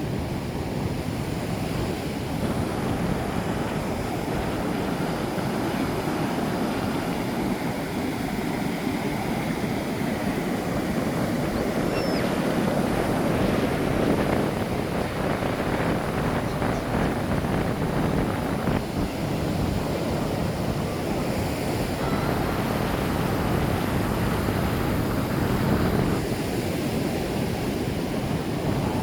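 Ocean surf washing onto the shore, a steady rush of breaking waves that swells and eases gently.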